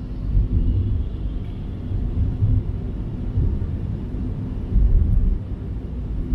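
Road noise of a car driving on a wet road, heard from inside the cabin: a steady low rumble of engine and tyres that rises and falls unevenly.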